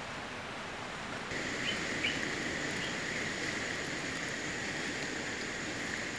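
Outdoor rural ambience: a steady background hiss, joined about a second in by a steady high-pitched drone and a few short chirps.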